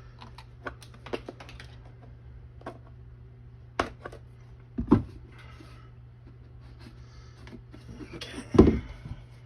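Scattered light clicks and knocks of a freshly drilled plastic container and tools being handled, with a few louder knocks about four and five seconds in and near the end, over a low steady hum.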